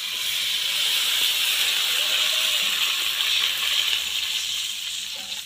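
Water poured into a wok of hot oil and fried masala, hissing and sizzling steadily as it hits the hot pan; the hiss eases off near the end.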